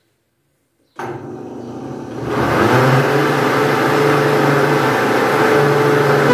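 Electric countertop blender switched back on and running while beating cake batter: the motor starts about a second in, builds up over the next second or so, then runs steadily with a constant hum.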